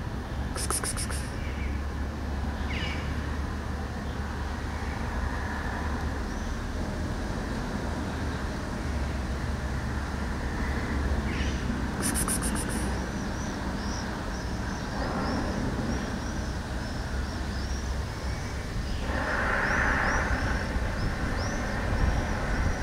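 Outdoor ambience: a steady low rumble, with small birds chirping repeatedly from about halfway through. There are two short high rattles, near the start and about halfway, and a louder spell of noise a few seconds before the end.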